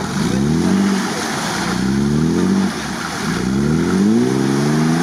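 Mercedes-Benz G-Class engine revved hard in three or four surges, the pitch climbing and holding each time, as the stuck vehicle spins its wheels in deep mud without moving. Only one wheel is turning because the rear differential lock is not engaged.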